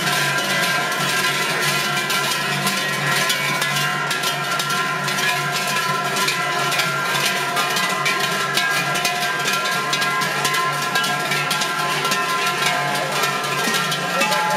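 Many large waist bells of Glöckler runners ringing together as they move, a steady dense clatter of strikes with overlapping ringing tones.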